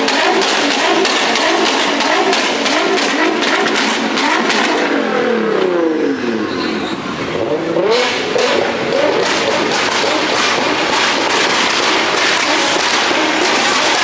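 Sports car engine revved repeatedly: the pitch falls off about five seconds in and climbs again a couple of seconds later, over a dense run of sharp exhaust crackles.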